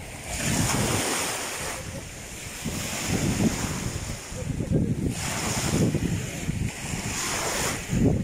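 Wind gusting across the microphone, rising and falling in uneven rumbles, over choppy lake waves washing in the shallows.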